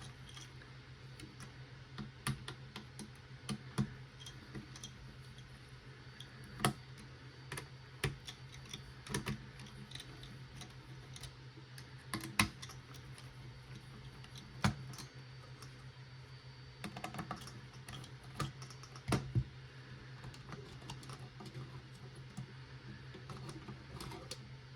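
Irregular light clicks and taps of small hard parts being handled while a mini PC is disassembled around its removed copper CPU cooler, with a few louder knocks spread through and a steady low hum underneath.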